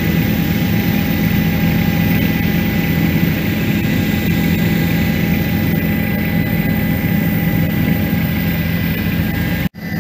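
Helicopter cabin noise in flight: the engine and rotors make a loud, steady low drone with a steady higher whine over it. The sound drops out for an instant near the end.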